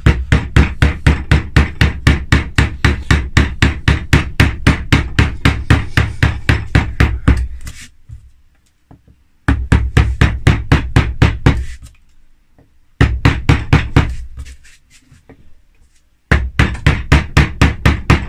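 V-chisel driven into linden wood by quick mallet taps, about five strikes a second. The taps come in four runs with short pauses between them.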